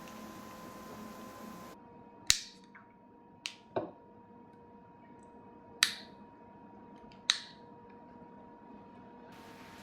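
Five sharp clicks at uneven intervals over a faint steady hum.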